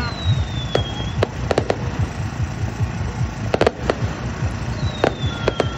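Aerial fireworks going off in a continuous run of low booms, with sharp cracks scattered through. A high whistle falls slightly in pitch near the start and again near the end.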